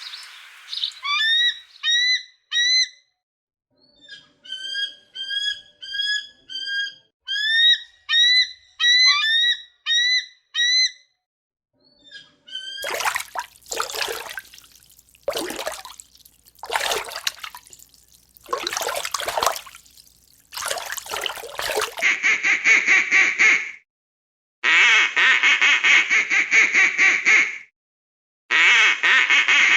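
A series of different animal calls in turn: first a run of short, quick rising chirps, then loud harsh calls about a second apart, then long buzzy calls of two to three seconds each.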